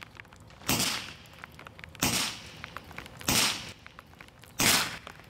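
Evanix Viper .25 caliber semi-automatic PCP air pistol firing four shots, about a second and a quarter apart, each a sharp report with a short ring-off.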